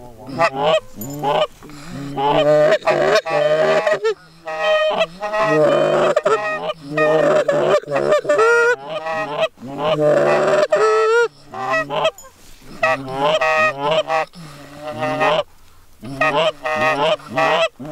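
Canada goose honks and clucks in quick, near-continuous runs, with a short break near the end.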